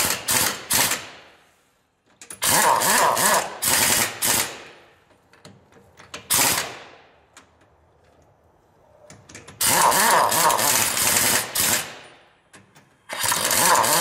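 A 1-inch-drive pneumatic impact wrench hammering on a truck wheel's lug nuts in four bursts with pauses between them. Each burst trails off as the air motor spins down.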